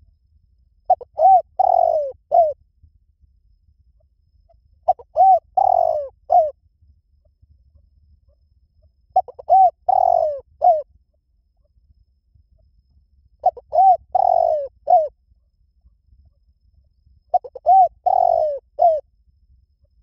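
Spotted dove cooing: five phrases about four seconds apart, each a quick run of four or five notes with a short note set slightly apart at the end.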